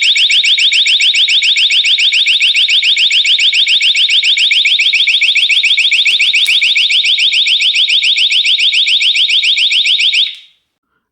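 Xiaomi Smart Doorbell 3's removal alarm going off, the sign that the doorbell has been taken off its mount. It is a loud electronic siren of rapid rising chirps, about seven a second, that stops shortly before the end.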